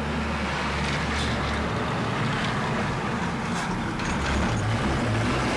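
A heavy lorry's diesel engine running as it drives across a dirt yard, its low note shifting a couple of times, with a broad rushing noise over it.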